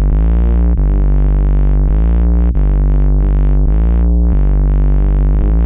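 Electronic intro music: held synthesizer chords with a sweeping filter, the chord changing about once a second.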